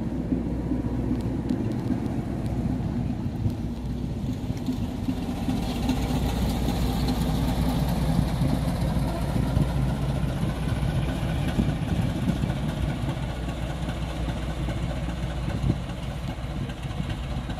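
Diesel engine of a shunting locomotive running steadily as the locomotive passes and moves away along the track, a little louder around the middle as it goes by.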